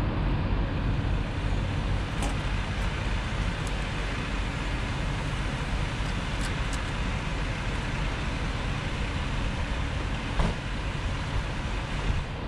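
Steady low rumble of running vehicle engines and road traffic, with a few faint clicks.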